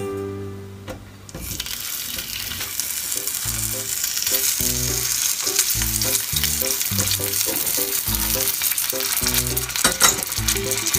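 Sausages sizzling in hot oil in a frying pan as they go in; the sizzle starts about a second and a half in and grows louder. A sharp tap sounds near the end.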